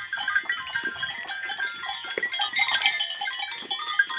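Herd of goats bleating, many short calls overlapping.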